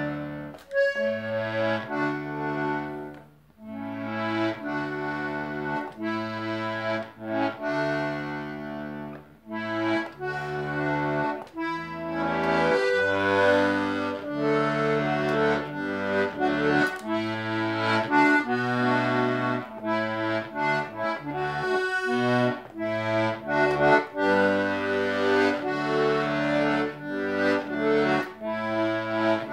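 Button melodeon playing a tune, the melody on the right-hand buttons over an alternating bass and chord accompaniment. Its newly waxed-in reeds have not yet been tuned.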